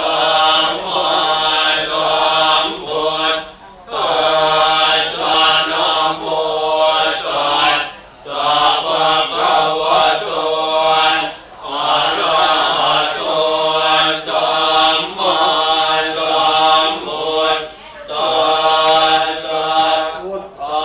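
A group of Buddhist monks chanting together in unison, in long sustained phrases with short breaks for breath every few seconds.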